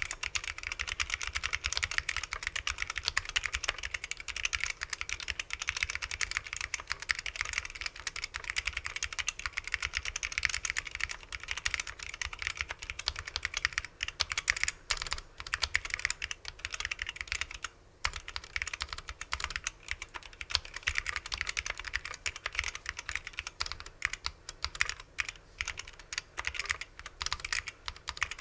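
Continuous fast typing on a gasket-mounted 350 Mini mechanical keyboard with unlubricated vintage SKCL Yellow Alps switches on a 1.2 mm aluminium plate: a dense run of key clicks with a brief pause about two thirds of the way through.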